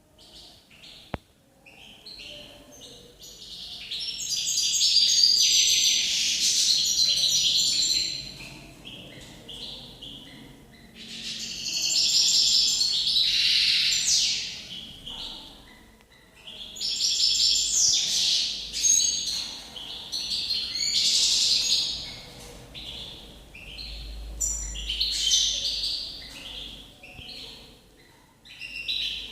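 European goldfinch song: long runs of rapid, twittering, tinkling phrases in four bouts of several seconds each, separated by short pauses. A single sharp click about a second in.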